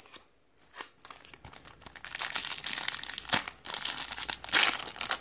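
Foil wrapper of a Topps Platinum football card pack being torn open and crinkled by hand. It starts with a few light clicks, then turns to dense crinkling from about two seconds in.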